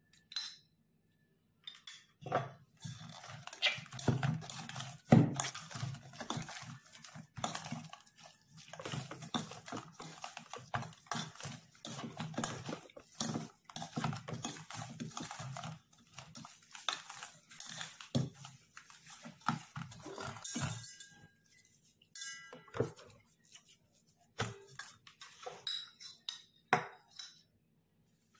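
Hands kneading oiled maida dough in a stainless steel bowl: an irregular run of knocks and scrapes as the bowl is shifted and the dough is pushed around it. A few separate knocks follow near the end.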